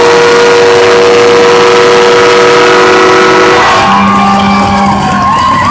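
Arena goal horn sounding for a goal: a very loud held chord of several steady tones, whose pitches change about three and a half seconds in.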